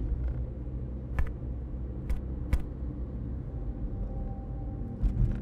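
Steady low rumble with a few scattered, sharp clicks and a faint thin tone near the end.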